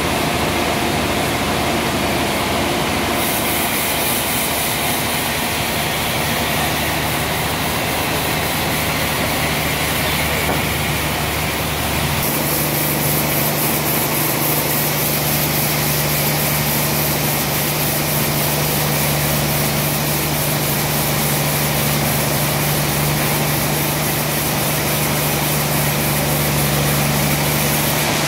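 Large band sawmill running steadily: a constant machine hum with a hiss of noise over it. The mix changes about twelve seconds in, when a steady low tone comes up stronger.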